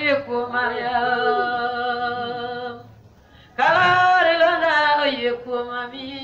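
A voice singing unaccompanied in long, held notes with a slight waver, as a sung prayer. It breaks off about three seconds in and starts a new phrase just under a second later.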